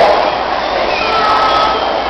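Crowd of many people shouting and chattering at once.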